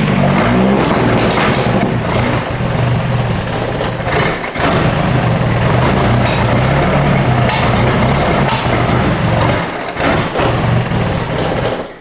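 Carbureted engine of an old pickup truck running loudly, faltering briefly about four and a half seconds in and again near ten seconds, then cutting off just before the end. It is running on the fuel left in its carburetors, with the fuel pump not working.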